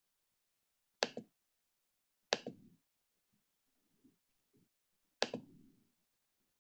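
Computer mouse clicked three times, about a second in, at about two and a half seconds and near the end. Each is a sharp click followed a moment later by a softer release click.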